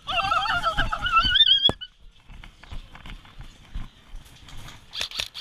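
A person's high-pitched, warbling screech lasting about two seconds and rising in pitch toward the end, like a whinny: a victory screech. A sharp click cuts it off, and faint rustling and light knocks follow.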